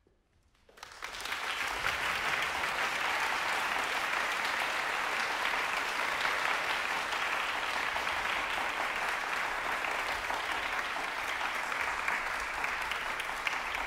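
Audience applauding, breaking out about a second in and then continuing steadily.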